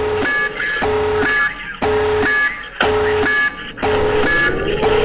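Toy army vehicle's electronic sound chip playing a repeating alarm-like beeping effect, about one cycle a second, with a rising whine starting near the end.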